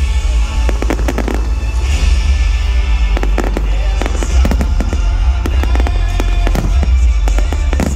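Fireworks display: aerial shells bursting in a rapid run of sharp bangs and crackles, starting about a second in, over loud music with heavy bass from the show's sound system.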